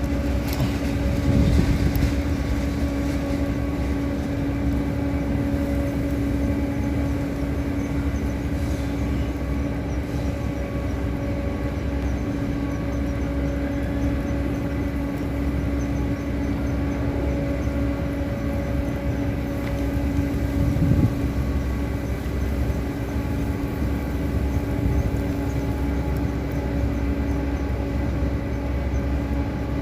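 Steady engine drone holding one constant pitch throughout, with a brief louder bump about two seconds in and again near twenty-one seconds.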